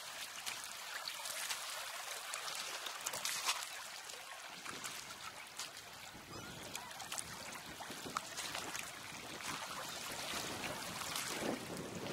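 Small waves washing and trickling on a stony shore, a steady hiss with scattered clicks.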